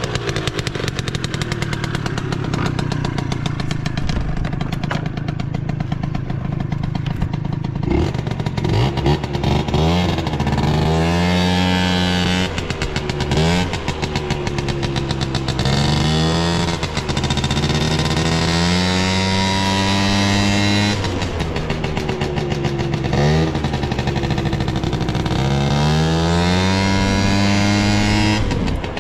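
Tuned Suzuki Hi scooter's two-stroke 50 cc engine breathing through a Mihara coiled expansion chamber. It idles steadily for about eight seconds, then is revved again and again in throttle blips, its pitch rising and falling each time. The seller describes the engine as free of abnormal noise.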